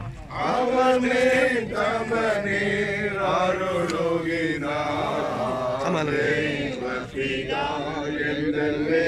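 A group of mourners singing a hymn together in slow, held notes at a graveside.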